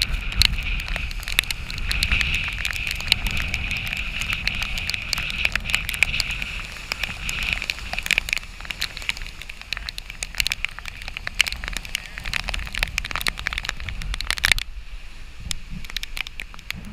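Class 40 sailboat's hull rushing through rough water in storm wind: a steady hiss of water and spray with low wind buffeting on the microphone, and many sharp ticks of rain and spray striking the camera. A little before the end the sound drops abruptly quieter and thinner.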